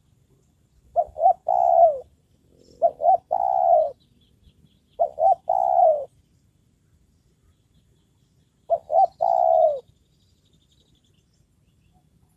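Spotted dove (tekukur) cooing: four calls, each two short notes and then a longer note that falls in pitch, spaced about two seconds apart, with a longer pause before the fourth.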